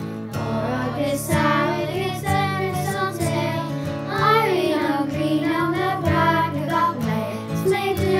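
Children singing a folk song together in unison over a steady instrumental accompaniment.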